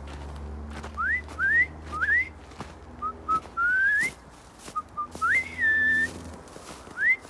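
A person whistling a series of short rising notes, then a longer note that rises, dips and holds, calling the feral cats out.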